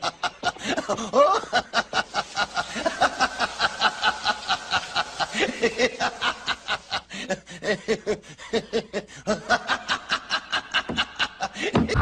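Cartoon character's voice laughing in a long, unbroken run of rapid, even cackles, about five a second, with a couple of brief catches for breath in the second half.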